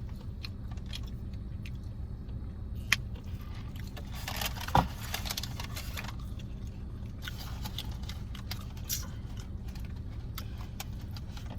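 Eating sounds: scattered small clicks and crinkles of food packaging and chewing, with a sharp click about three seconds in and a short thump near five seconds in, over a steady low rumble.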